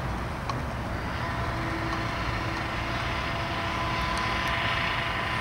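Road saw (petrol cut-off saw for cutting road surface) running, its steady whine coming in about a second in over a low machinery rumble.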